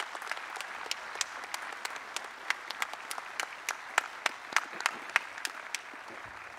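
Applause from the audience and the stage party: a steady patter of many hands with some louder single claps standing out, easing off near the end.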